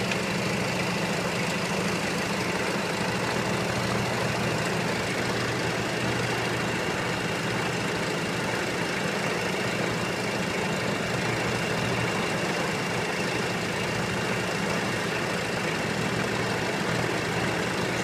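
Cessna 182 JT-A's four-cylinder turbocharged Jet-A diesel engine running steadily on the ground just after start-up, heard from inside the cabin.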